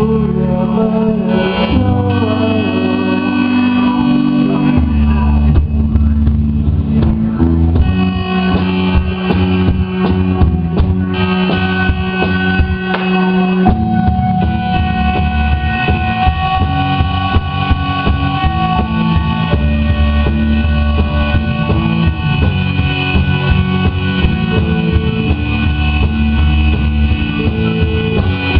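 A rock band playing live without vocals: electric guitar, bass, synthesizer and drum kit, with the bass line and held guitar and synth notes over steady drumming.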